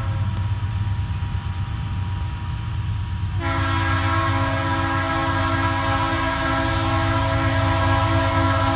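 Diesel freight locomotive's air horn sounding long steady blasts over the low rumble of its engine. About three and a half seconds in, the horn abruptly turns louder and fuller.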